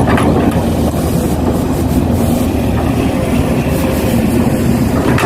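Radio-controlled model construction machine running: a steady mechanical hum with a constant whine.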